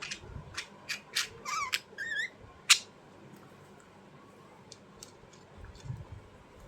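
Small birds chirping: a quick run of sharp, high chirps and short warbling notes in the first three seconds, the loudest a single sharp chirp near the end of the run, then only faint scattered clicks.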